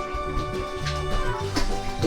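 Background music: steady held notes with a light beat.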